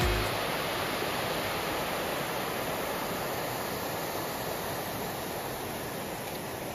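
Steady rush of river water pouring over rocks and a low weir, easing off slightly.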